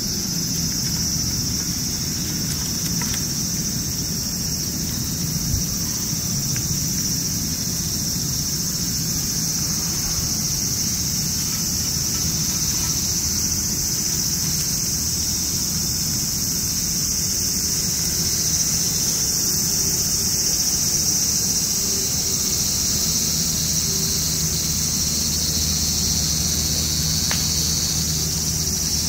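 A steady chorus of insects, one unbroken high-pitched shrill, over a steady low rumble.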